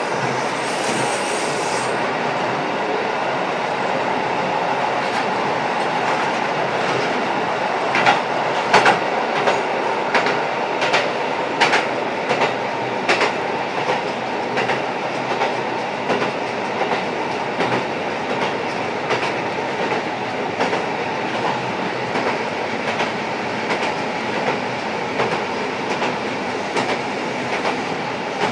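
Running noise inside a KiHa 125 diesel railcar, heard from a seat directly above its diesel engine with the window slightly open: a steady mix of engine and wheel noise. About eight seconds in comes a run of sharp rail-joint clicks lasting several seconds.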